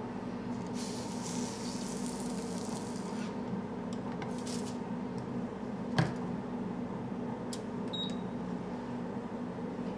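Cornbread waffle batter sizzling on the hot iron of a Wells rotating waffle maker for a couple of seconds, then a sharp clunk about six seconds in as the iron is closed and turned, and a short electronic beep near eight seconds as the timer button is pressed, over a steady background hum.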